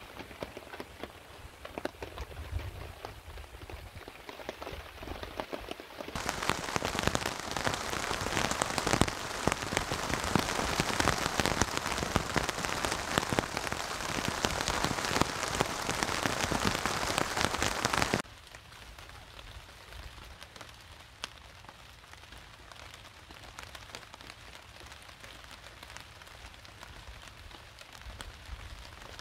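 Heavy rain falling on a camp tarp, a dense hiss of many fine drop hits. It turns abruptly much louder and brighter about six seconds in and drops back just as suddenly about eighteen seconds in.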